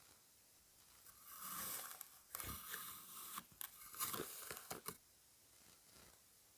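Kinetic sand being worked: a brief scraping rustle about a second in, then a run of crisp crunches and crackles that stops about five seconds in.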